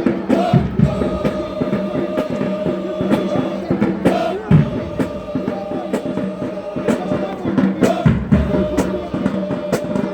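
Marching band playing: brass holding long chords over frequent drum strikes.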